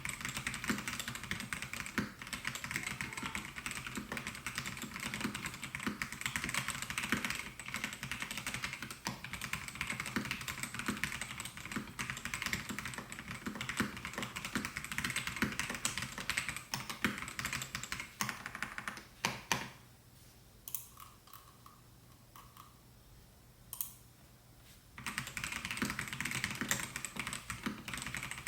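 Typing on a Melgeek Mojo68 mechanical keyboard with white linear-style switches: a fast, continuous run of key clicks. It thins to a few single keystrokes for about five seconds near the end, then the fast typing picks up again.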